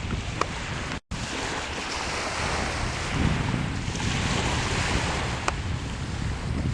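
Sea waves washing on the shore, with wind buffeting the microphone as a gusty low rumble. The sound cuts out completely for an instant about a second in.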